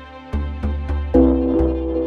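Background music with a steady pulsing beat in the bass; a held higher chord comes in about a second in.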